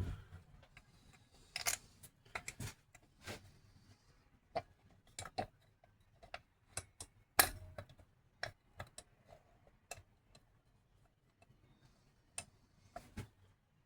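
Scattered light clicks and knocks of metal starter-motor parts being handled and set down, with one sharper knock about seven and a half seconds in.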